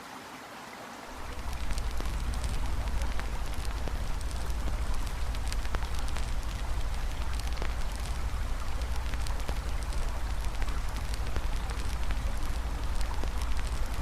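Campfire crackling with frequent sharp pops over a steady rush of flowing water and a low rumble. The rumble is missing at first and comes in about a second in.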